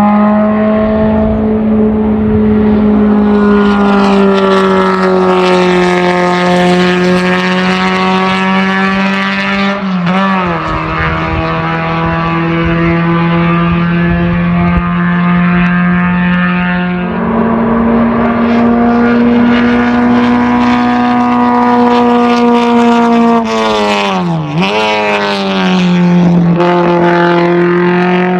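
Hillclimb race car's engine running hard at high revs, its pitch held nearly steady and sagging slowly. It dips briefly about ten seconds in, steps up about seventeen seconds in, and drops sharply and recovers near the end as the throttle is lifted and reapplied.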